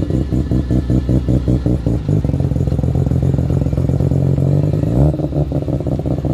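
Mazda RX-7 FC's two-rotor 13B rotary engine pulling away at low speed with a choppy, pulsing exhaust note, smoothing out for a few seconds, with a short rev rising about five seconds in before it settles back into the pulsing.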